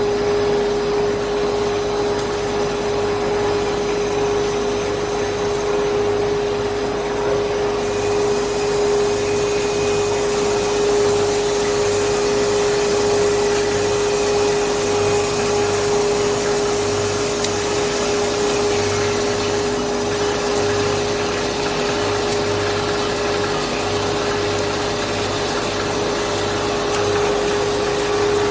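Stretch film cast film production line running: a loud, steady machinery noise of motors and blowers with a constant hum and a broad hiss, which grows a little brighter about eight seconds in.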